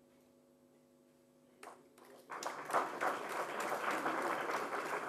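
Audience applauding in a hall, starting about two seconds in after a near-silent pause with a faint steady hum and a single click.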